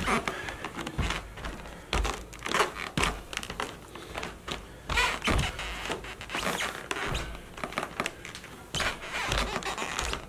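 Black leather Blundstone Chelsea boots stepping and shuffling on a rug over a hardwood floor: scattered soft thuds and scuffs at an uneven pace.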